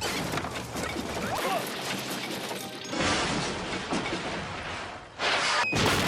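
Hollywood Edge 'Wood Crash Large' stock sound effect: a big crash of breaking wood followed by a dense clatter of tumbling boards and debris. It restarts abruptly a couple of times as the same crash is cut in again.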